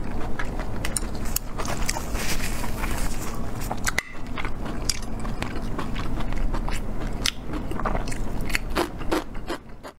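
Close-miked chewing and biting of braised, sauce-glazed pig intestine, with many irregular wet clicks and smacks from the mouth.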